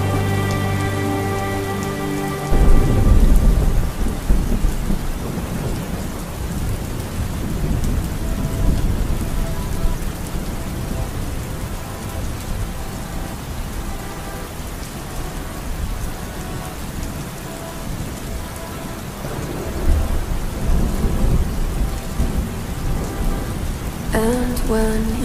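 Rain falling with deep rumbling, loudest a few seconds in and again near the end. A song ends in the first two seconds, and music starts again near the end.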